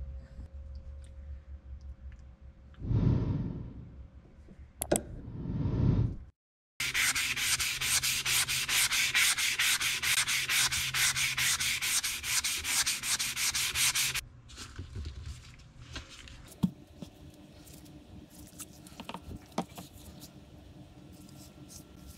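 Hickory hammer handle being hand-sanded with a green sanding pad: rapid back-and-forth scratching strokes for about seven seconds in the middle, then stopping. Softer scattered clicks and handling noises follow.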